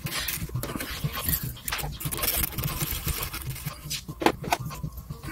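Close, irregular clicking and scratching of fingers handling tiny plastic and metal parts of a 1:64 die-cast toy car, as wheels and axles are fitted. A sharper click about four seconds in is the loudest.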